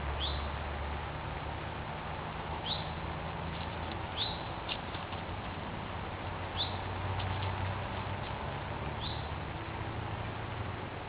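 A small bird chirping, a single short high note about every two seconds, over a steady low background hum, with a few faint clicks.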